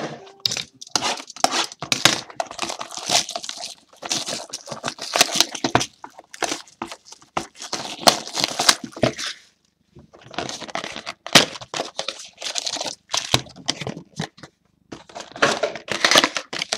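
Trading-card hobby box being torn open and its wrapped card packs pulled out and handled: rapid tearing, crinkling and rustling in bursts, with short pauses.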